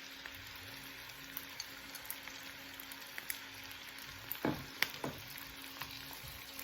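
Sliced mushrooms and onion sautéing in butter and garlic in a stovetop pan: a steady sizzle with fine crackling, and a couple of sharper clicks about four and a half seconds in.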